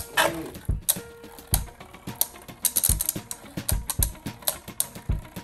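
Two spinning Beyblade Burst tops clashing in a plastic stadium: repeated sharp clacks, about three or four a second, at an uneven rhythm.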